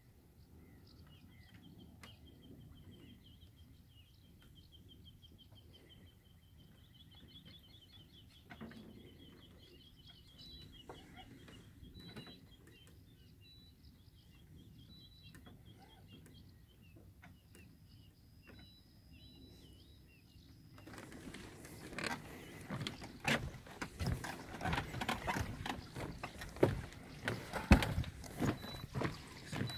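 Faint birdsong of short repeated notes and trills over a quiet lakeside. About two-thirds of the way in, loud irregular knocks and low rumbling from close handling and footsteps set in and drown it.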